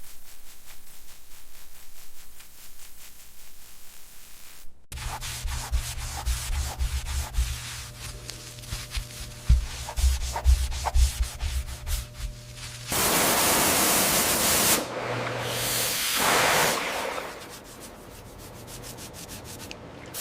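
Rapid, steady scraping and rubbing, with a louder hiss for about two seconds past the middle and a shorter one soon after.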